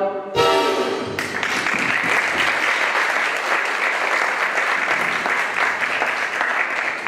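An audience clapping and applauding, starting about a second in as the song's last note dies away.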